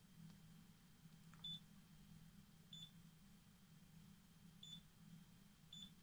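Candy Rapido washing machine control panel beeping as its option buttons are pressed: four short, high beeps spaced one to two seconds apart, over a faint steady low hum.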